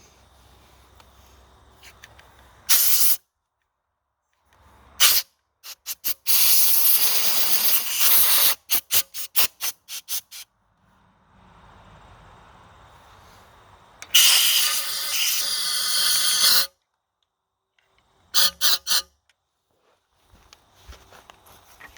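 Repeated hissing blasts from a pressurized spray nozzle: a short blast early on, a burst and two quick puffs, a long blast of about two seconds, then about six quick pulses. Later comes another blast of about two and a half seconds, and three short puffs near the end.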